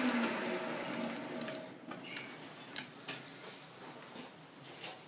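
Metal lathe winding down after a spring cut: the running sound and its gear whine sink in pitch and fade over the first two seconds, then a few light clicks and ticks as the chuck coasts.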